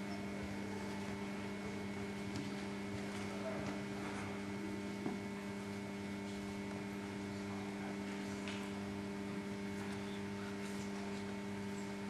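Steady electrical mains hum made of several steady tones, over faint hall noise, with one soft knock about five seconds in.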